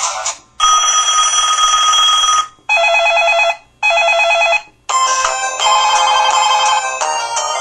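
LG-SD350 mobile phone playing its built-in ringtones and effect sounds one after another: a steady electronic ring, then two short trilling rings, then a melody starting about five seconds in.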